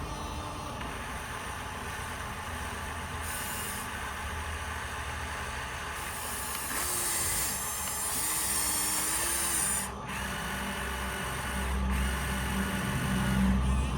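Small electric motors and plastic gearboxes of radio-controlled toy construction vehicles whirring as they drive and work. The whine changes pitch and level in steps, breaking off abruptly about ten and twelve seconds in.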